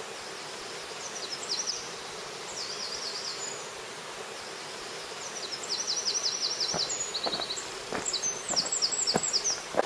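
Small songbirds singing in rapid high trills and repeated chirping phrases over a steady hiss, with several short knocks in the second half.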